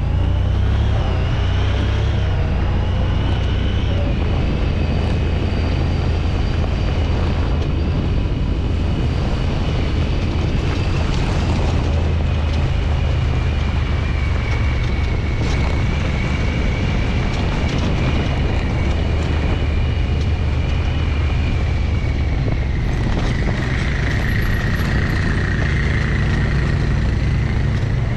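Side-by-side UTV running steadily as it drives along a rough trail, heard from on board: a low engine rumble with a high whine that slowly drifts in pitch.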